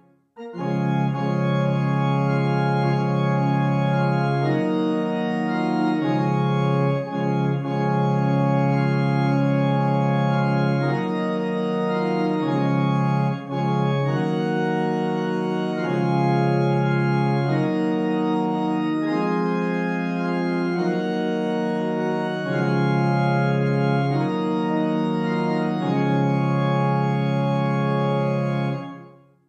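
GrandOrgue virtual pipe organ, played from one keyboard with no pedals, sounding slow sustained chords. It comes in just after a brief silence and fades out near the end.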